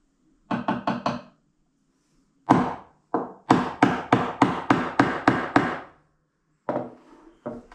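Round wooden mallet striking a mortise chisel driven into hardwood, chopping a mortise by hand. Sharp wooden knocks come in a quick cluster of light taps near the start, then a steady run of about four harder blows a second, each one driving the chisel a little deeper.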